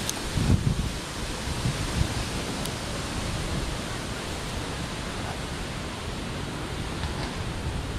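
Wind blowing across the camera microphone: a steady rushing hiss with uneven low rumbling buffets.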